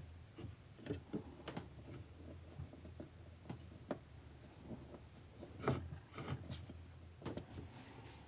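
Screws being driven by hand into a 3D printer during assembly: faint, scattered clicks and small scrapes of the tool and parts, with a slightly louder cluster of knocks about six seconds in.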